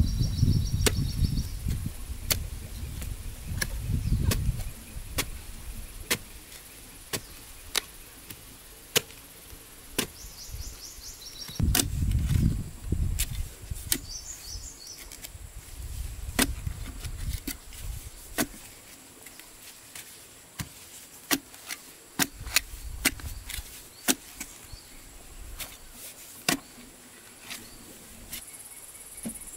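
A long-handled digging tool's narrow blade jabbing into dry, clumpy soil while a hole is dug: sharp strikes at irregular intervals, roughly one a second.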